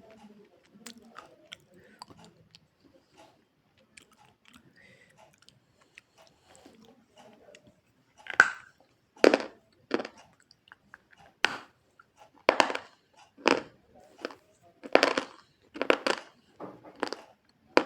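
A person chewing softly, then from about halfway biting and crunching a hard white food in loud sharp crunches, roughly one a second.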